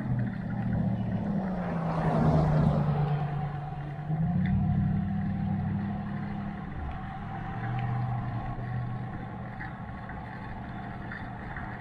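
Motorcycle engine running at road speed under a constant rush of wind noise, its note stepping up about four seconds in and settling again near seven seconds. A broad swell of rushing noise rises and fades about two seconds in.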